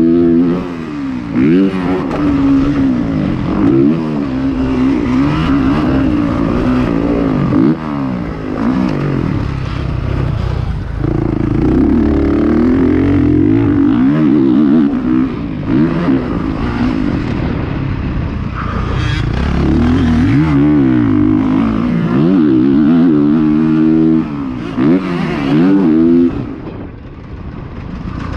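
Dirt bike engine under hard throttle around a motocross track, its pitch climbing and falling again and again as the rider accelerates, shifts and rolls off. The throttle is shut briefly near the end, then opened again.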